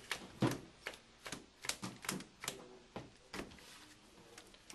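Sharp clicks and taps on a tabletop, about two a second, fading near the end: playing cards or game pieces being set down during a card game.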